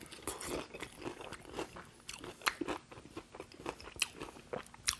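Bites and chewing through the crispy fried breading of a KFC hot wing: a quick, irregular run of crunches.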